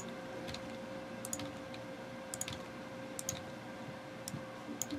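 Faint, sparse, irregular clicks from a computer keyboard and mouse, over a steady low hum.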